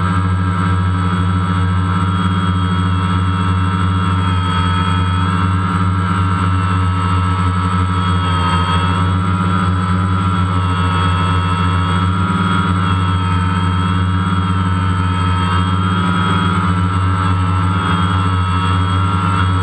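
DJI Phantom quadcopter's motors and propellers humming steadily, heard from the camera mounted on the drone as it comes down low over the sand to land. The pitch wavers slightly.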